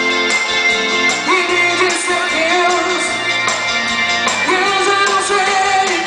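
Live band playing a song with a singer, over electric guitar, saxophone, bass and drums.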